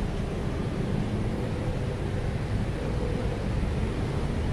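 Steady low rumble of distant road traffic with a faint engine hum, mixed with wind on the phone's microphone.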